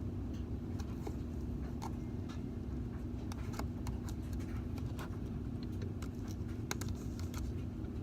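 Faint scattered sticky clicks and crackles as slime is drizzled onto instant snow, over a steady low background hum.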